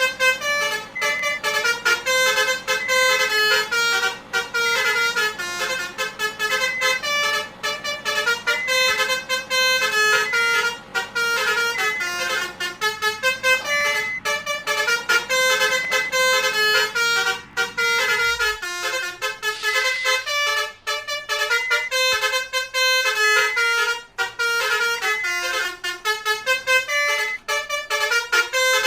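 Multi-tone 'basuri' telolet horn on a convoy vehicle playing a fast, repeating melody of stepped notes. A low rumble underneath stops about two-thirds of the way through.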